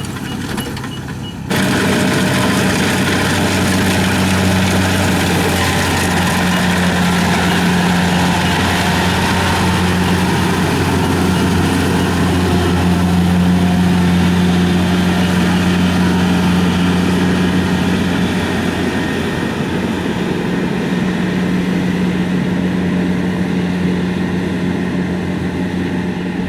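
Kubota DC-70 combine harvester's diesel engine running steadily with a constant low drone. The sound jumps suddenly louder about a second and a half in, then holds level.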